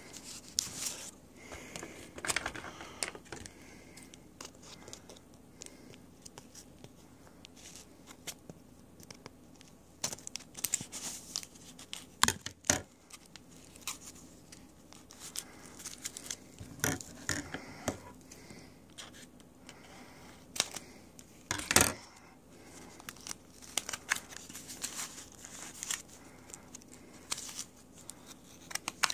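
Hands tearing and crinkling packaging to open a mailed package, in intermittent rustles and small clicks, with a couple of louder sharp clicks about twelve and twenty-two seconds in.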